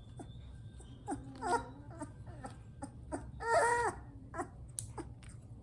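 Three-week-old Bernese Mountain Dog puppy crying in short, high-pitched wails, held and upset during nail clipping; the longest and loudest cry comes about three and a half seconds in. Small clicks sound between the cries.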